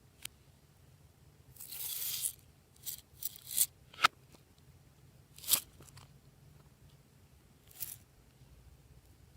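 Glossy slime being handled and mixed: a few short, sticky crackling and clicking pops at irregular intervals, with quiet between them.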